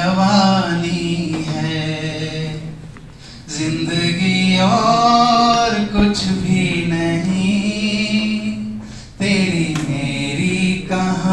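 A man singing solo and unaccompanied, a slow melody with long held notes. The voice breaks off briefly twice, about three seconds in and about nine seconds in, before the next phrase.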